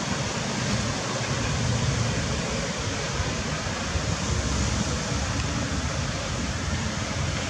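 Steady rushing outdoor background noise with a fluctuating low rumble, without distinct calls or knocks.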